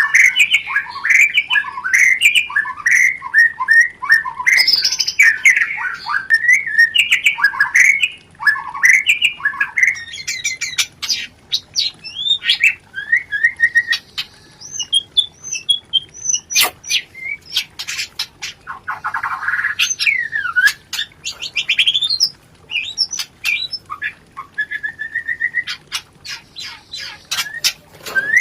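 White-rumped shama (murai batu) in breeding condition giving rapid, dense chattering calls (rencetan). About ten seconds in the chatter loosens into sharp ticks, short whistles and a trilled phrase.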